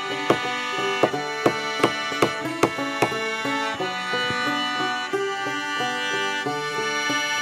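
Instrumental background music with sustained chords. Over it, a hammer strikes a nail into a wooden log about seven times at roughly two and a half blows a second, stopping about three seconds in.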